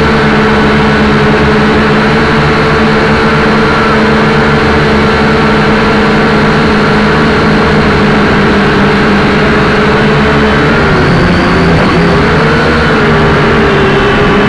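Small quadcopter's electric motors and propellers buzzing loudly in flight, heard from the aircraft itself: a steady pitched drone that dips and wavers about eleven seconds in as the throttle changes, then settles again.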